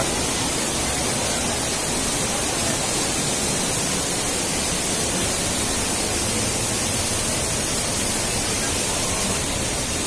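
A steady rushing noise that stays even throughout, with no distinct events.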